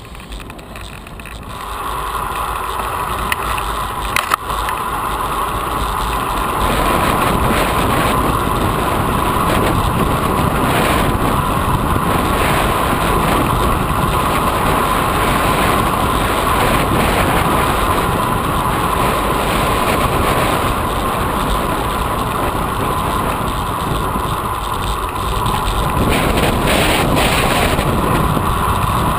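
Wind rushing over the camera's microphone as a road bike is ridden along a paved path, a steady noise that grows louder over the first several seconds as the bike picks up speed and then holds.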